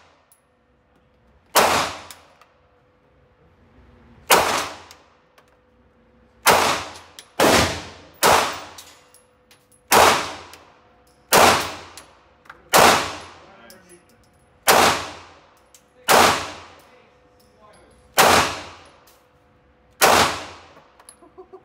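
Semi-automatic pistol firing twelve shots at an uneven pace, roughly one every one to two seconds, each crack ringing on in the indoor range. This is a full double-stack magazine being emptied.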